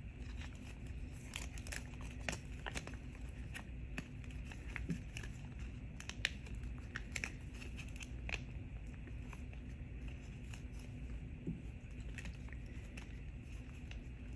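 Crinkling and clicking of a thin clear plastic sleeve as nail art brushes are handled and pulled out of it, over a steady low hum.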